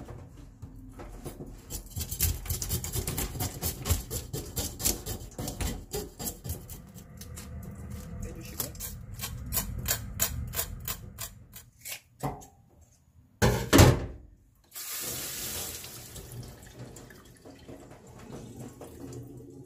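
Kitchen knife scraping the large, tough scales off a mullet in a stainless steel sink, many quick strokes in a row. A single loud knock comes about fourteen seconds in, then a tap runs water into the sink.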